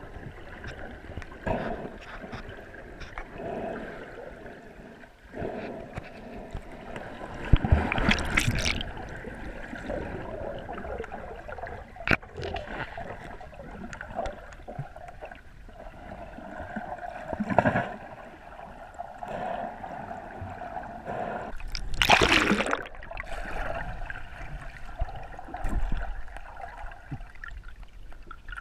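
Muffled underwater water sounds, gurgling and sloshing, heard through a GoPro's waterproof housing, with two louder rushes of water about 8 and 22 seconds in.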